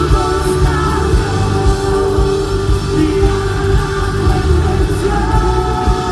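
A band playing a song with singing: voices hold long notes over a steady bass and drums.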